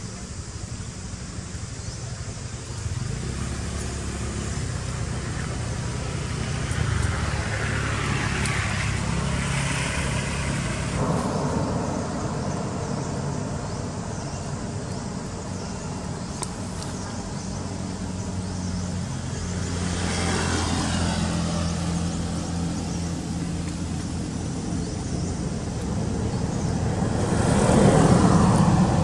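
Road traffic: vehicles driving past one after another, engine hum and tyre noise rising and falling with each pass. The loudest pass comes near the end, as a car goes by close.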